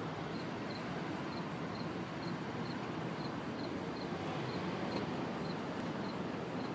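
Steady rushing outdoor background noise, with a faint high-pitched chirp repeating about three times a second.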